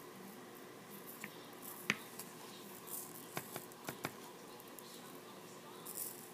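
Red glitter shaken from a small plastic vial over newspaper: a scattering of light clicks and taps, the sharpest about two seconds in and a quick run of them around three to four seconds, with brief faint rustles of glitter and paper.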